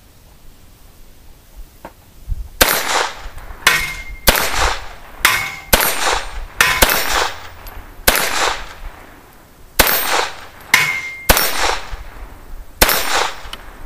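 Colt 1911 pistol with a .22 LR conversion kit firing a string of about eleven shots at steel plates, starting about two and a half seconds in. Several shots are followed by the short ring of a steel plate being hit.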